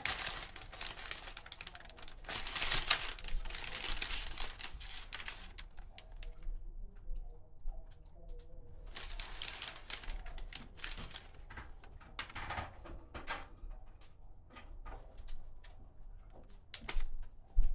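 Paper wrapper of a baguette crinkling and rustling in bursts, loudest over the first few seconds, with small crackling clicks and shorter rustles later.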